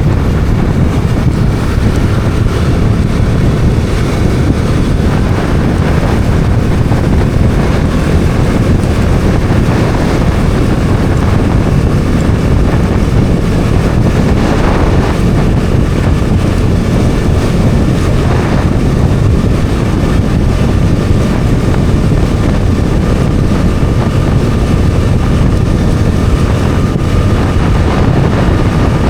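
Bajaj Dominar 400's single-cylinder engine running steadily while the motorcycle is ridden, with heavy wind noise on the microphone.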